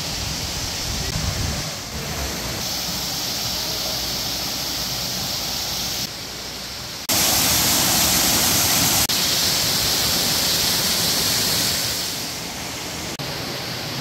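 Steady rush of water pouring from an artificial rock waterfall into a pool in a glass-roofed greenhouse. The level steps up and down abruptly several times and is loudest in the middle.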